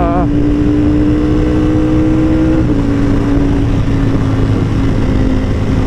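Sport motorcycle engine running at steady cruising revs, its pitch creeping up slowly and then dropping slightly about two and a half seconds in, over rushing wind noise.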